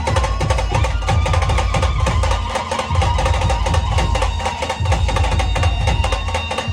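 Dhol-tasha drumming: rapid, dense tasha strokes over heavy dhol beats. Above the drums a held tone near the middle of the range slides slowly up and down in pitch.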